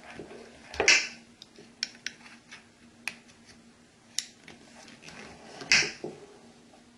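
Hand work on vinyl wrap film: scattered sharp clicks and taps, with two louder rustling scrapes about a second in and again near six seconds.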